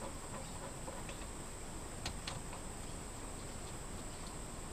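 A few faint clicks from a hand tool running down the cylinder head cover bolts on a Yamaha F50 four-stroke outboard, over a steady high-pitched background hiss.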